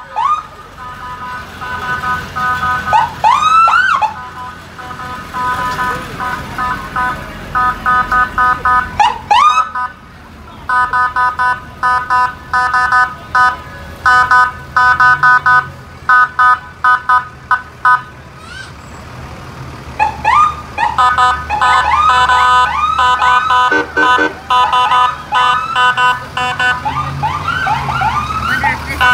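Fire trucks' sirens and horns. Siren whoops rise in pitch, then a long run of rapid short horn blasts follows, and near the end there is a dense mix of overlapping siren yelps and honks.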